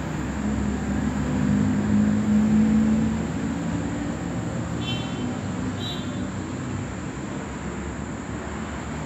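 Steady low background rumble and hiss, like distant road traffic, with two short high beeps about five and six seconds in.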